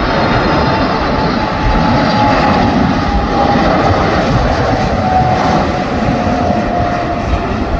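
Boeing 747 freighter's four jet engines on final approach, gear down: a loud, steady roar with a whining tone that slowly falls in pitch as the jet passes.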